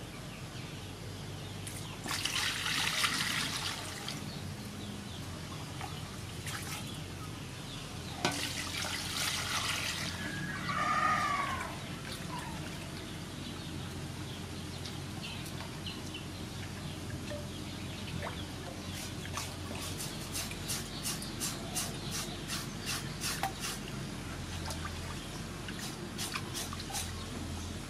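Water sloshing and splashing in a metal bowl as raw pork is washed by hand, with a bird calling once midway. In the second half, a knife scrapes the wet pork skin in quick repeated strokes, about two to three a second.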